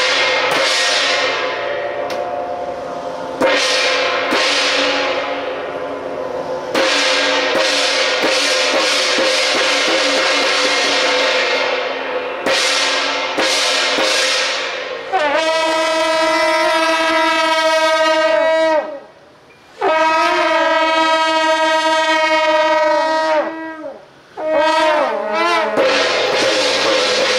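Hand gongs struck every few seconds, each stroke ringing on long after. Then a group of shao jiao, the long brass horns of Taiwanese temple processions, blows two long held blasts of a few seconds each, followed by a shorter wavering call.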